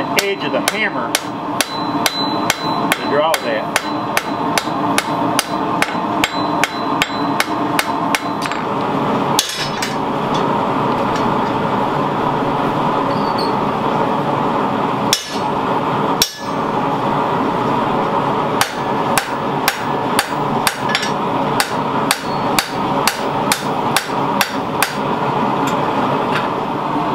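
Hand hammer striking a red-hot 52100 carbon-steel knife blade on a steel anvil, forging out the blade, at about two to three blows a second. The blows thin to a few single strikes for several seconds midway, then the steady hammering resumes. A steady hum runs underneath.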